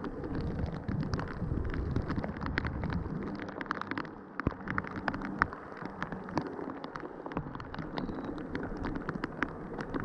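Heavy rain falling, a steady hiss with raindrops striking close by as sharp, irregular taps.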